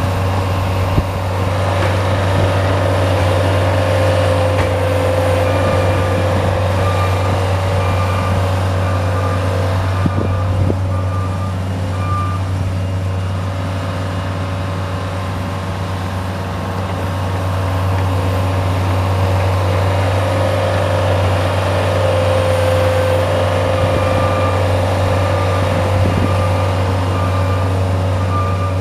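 Bobcat S175 skid steer's diesel engine running steadily under work, with a faint repeating beep coming and going that fits its backup alarm.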